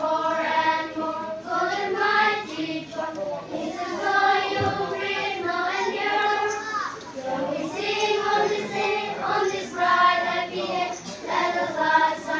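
A choir of schoolchildren singing a song together, in held phrases with short breaths between them.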